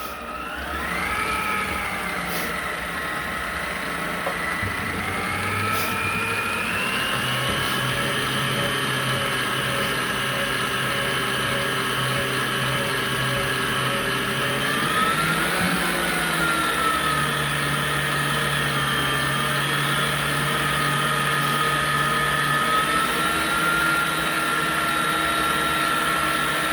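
Electric stand mixer running steadily with a motor whine, beating instant chocolate pudding mix into cold milk. The pitch wavers briefly a little past halfway, then settles.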